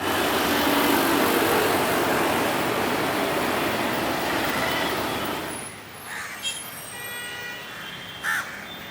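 Steady, loud rushing noise of a passing vehicle that drops away about five and a half seconds in. Over the quieter background that follows, small birds chirp and crows caw twice.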